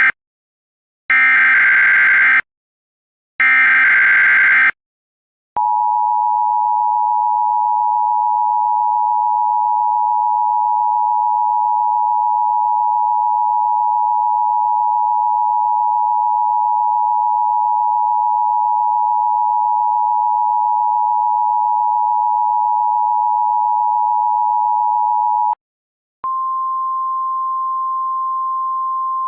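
Emergency Alert System tones. First come the last of the three SAME header data bursts, each about a second long with short gaps between. Then the steady two-tone EAS attention signal plays for about twenty seconds and cuts off suddenly. After a brief gap a single steady tone starts, slightly higher in pitch.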